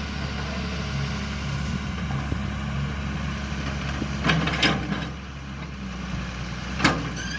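JCB 3DX backhoe loader's diesel engine running steadily, with three sharp clanks about four, four and a half, and seven seconds in.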